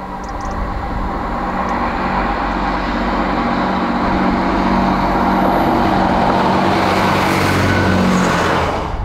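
Class 158 diesel multiple unit approaching and running past close by: a steady engine hum with wheel-on-rail noise, growing louder as it nears. The sound cuts off suddenly near the end.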